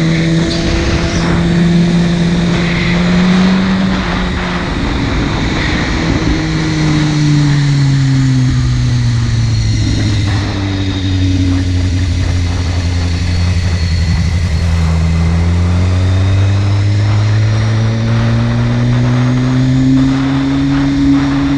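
Buell 1125CR's 1125 cc V-twin engine under way. The revs climb for the first few seconds, dip, then fall slowly for about ten seconds as the bike slows, then rise steadily again through the last third.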